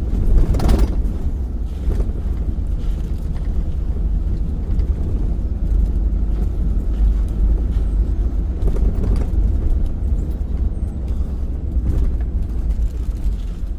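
Ford pickup truck driving, heard from inside the cab: a steady low engine and road rumble, with a brief knock about half a second in.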